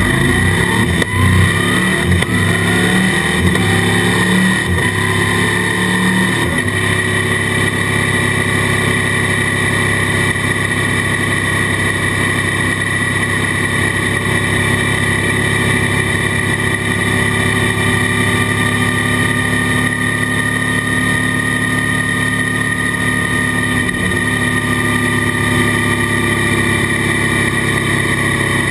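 Suzuki V-Strom 650's V-twin engine through an Akrapovic exhaust, accelerating hard through the gears with rising revs for the first six seconds or so, then running steadily at cruising speed. It is heard muffled through the GoPro's waterproof housing.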